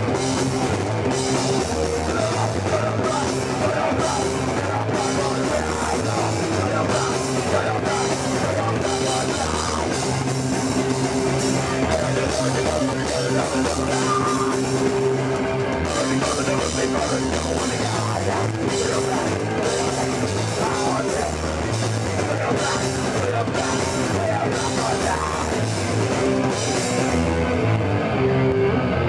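Punk band playing live: distorted electric guitar, bass and drums with cymbal crashes, loud and unbroken.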